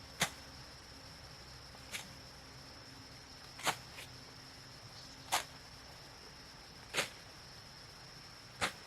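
Short, sharp knocks or clicks repeating at an even pace, about one every second and a half to two seconds, over a steady high-pitched whine.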